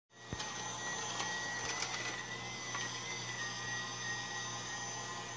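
Battery-powered toy upright vacuum whirring steadily, a small motor with a thin, slightly wavering high whine, with a few faint clicks as it is pushed across the rug.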